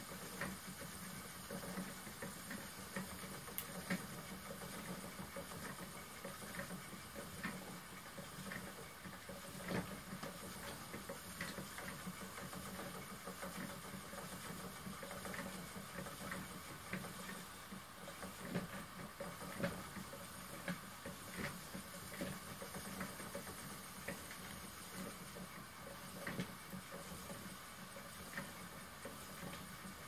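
Spinning wheel running steadily as yarn is spun onto it: a faint low hum with soft, regular clicks.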